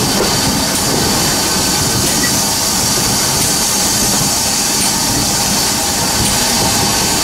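Steam train hauled by GWR Prairie tank 5521, heard from an open carriage window as it runs slowly into a station. Steady rumble of the coaches on the rails, with a steady hiss over it.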